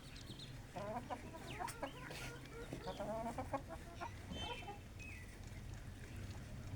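Desi hens clucking, a run of short repeated calls with a few higher chirps, over a steady low hum.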